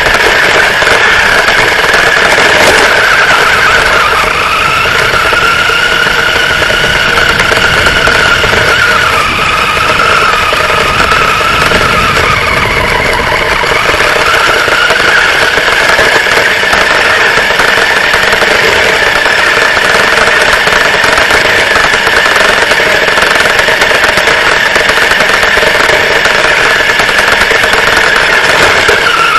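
Radio-controlled truck's motor running steadily throughout, with a high pitched drone that sags lower for several seconds and climbs back up about halfway through.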